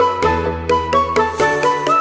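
Background music with a steady beat, a bright melody of bell-like notes over a bass line.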